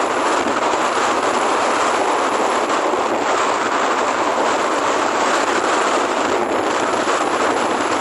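Steady rushing wind and road noise from travelling along a paved lane, the air buffeting the microphone with no break.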